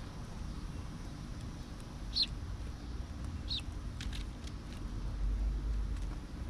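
Small birds at a feeder giving two short, high, falling chirps a second or so apart, with a few faint ticks, over a low steady rumble that swells near the end.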